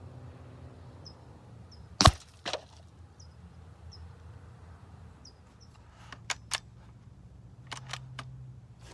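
Umarex Gauntlet .25 calibre PCP air rifle firing one sharp shot about two seconds in, with a weaker crack half a second after it. Several light clicks follow near the end.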